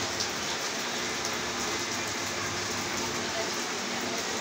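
Heavy rain falling steadily, an even dense hiss, with the faint crackle of an arc welder near the start.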